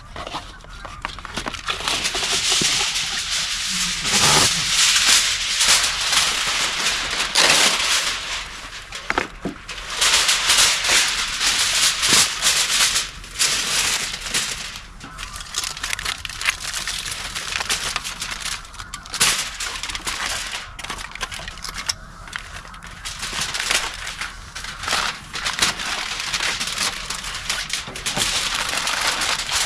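Sheet of aluminum foil crinkling and rustling as it is handled and folded, in irregular spells with brief pauses.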